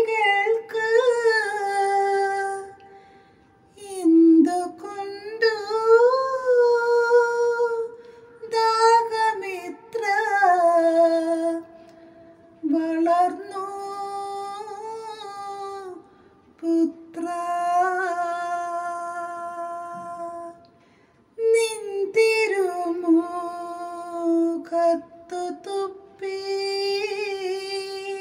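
A woman singing a Malayalam Christian devotional chant unaccompanied, in long, sliding, melismatic phrases separated by short breaths.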